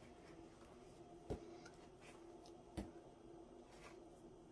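Two short, sharp snaps of stiff cardstock pages being turned in a bound manipulative packet, about a second and a half apart, over a faint steady hum.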